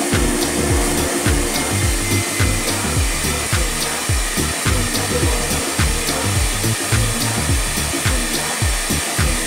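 Steady rushing of a spray-extraction cleaning machine's vacuum motor as its hand tool sprays and sucks over a mattress, along with background music with a steady beat.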